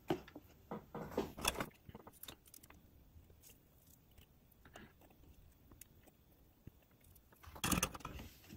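Faint small clicks and rustles of fingers handling fine wire and a capacitor inside a plastic model coach shell, then a quiet stretch while the joint is soldered, and a brief burst of handling rustle near the end.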